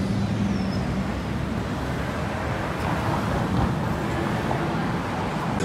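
Street traffic: passing and idling cars give a steady road noise with a low engine hum, which is strongest at the start.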